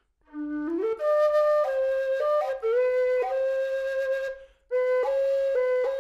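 Nightingale aluminium low whistle played, a phrase that starts on a low note and climbs to sustained notes broken by quick cuts, with a short breath pause about four and a half seconds in. It is demonstrating the player's preferred fingering for C natural.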